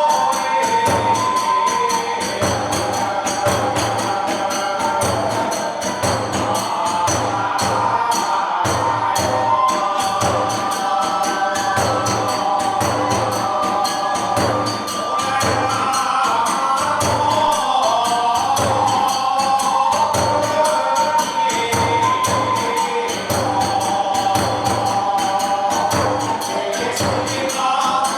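Hiroshima kagura accompaniment: a steady taiko drum beat and clashing hand cymbals under a melody line, with a kagura song being sung.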